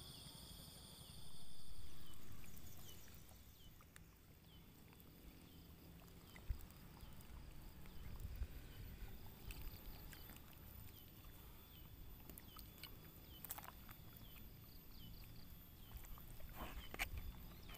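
Quiet outdoor ambience: a low rumble of wind or water, with a small high chirp repeating about twice a second and a few scattered clicks. A brief low swell comes about a second in.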